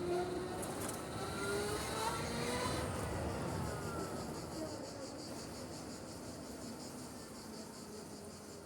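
Zero SR/F electric motorcycle's motor whining as it rises in pitch over about three seconds of acceleration, then easing back and dropping in pitch as it slows, over road and wind noise that fades toward the end.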